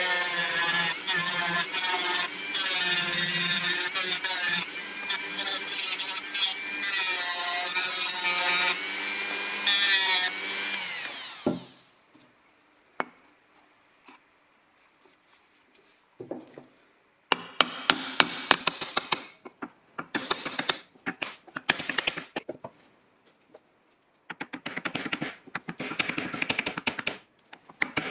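A small electric power tool running under varying load, then winding down and stopping about eleven seconds in. After a pause come clusters of short scraping or rubbing strokes, like hand work on wood or metal.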